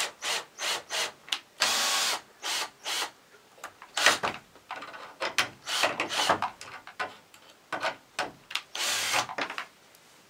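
Cordless drill-driver run in short, repeated bursts into pallet wood, with a longer run about two seconds in and another near the end.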